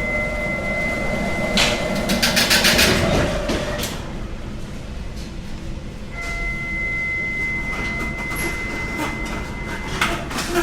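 Bakery machinery running with a low rumble and a steady high whine. The whine stops about three seconds in and comes back about six seconds in. A quick run of rattling clicks comes about two seconds in, and a few more clicks near the end.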